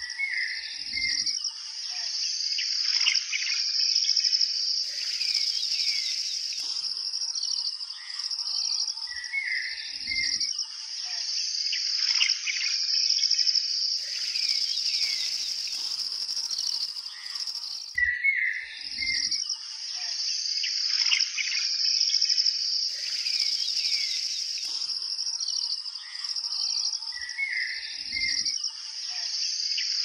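A steady high-pitched insect trill with bird chirps and calls over it. The same group of chirps comes back about every nine seconds, along with a brief rush of hiss, as in a looped nature-sounds track.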